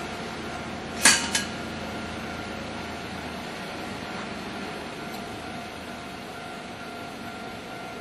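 A road vehicle's wheels clacking twice over the rails of a level crossing, front then rear axle, about a third of a second apart. Behind it runs a steady street hum, with the vehicle's low rumble fading out partway through.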